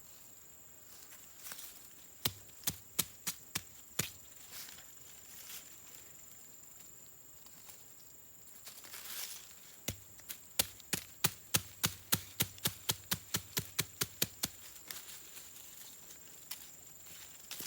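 Two runs of sharp chopping strokes, about three a second, from a blade striking wood or a chopping board. The first run is short; the longer second run starts about ten seconds in.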